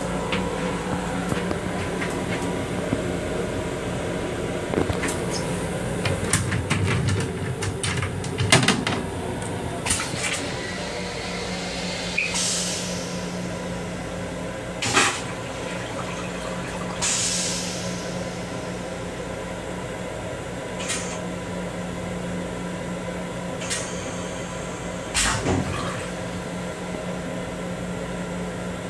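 Steady hum of a moving M7 electric railcar heard inside its restroom. The restroom door and fittings give a string of clicks and knocks in the first ten seconds, then a few more knocks, and several short hisses about five seconds apart.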